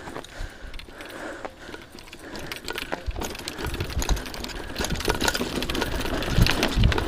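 Bicycle rattling and clattering as it rolls fast down a steep dirt trail over roots. The rattle grows louder and busier as it picks up speed, with a few heavy knocks near the end.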